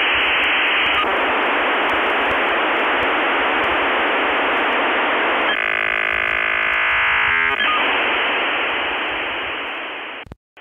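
Loud, steady static hiss. For about two seconds past the middle it turns into a set of steady, buzzy tones, then the hiss returns, fades and cuts off just before the end.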